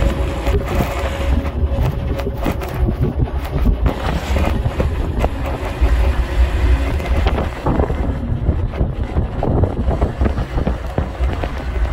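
Wind buffeting the microphone from a moving vehicle, a heavy uneven rumble that surges and fades, over the road noise of the vehicle, with a faint steady hum in the first half.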